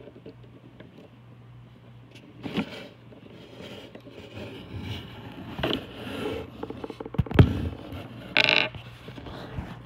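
Scattered scrapes, rustles and knocks, the sharpest knock about seven seconds in, over a low steady hum.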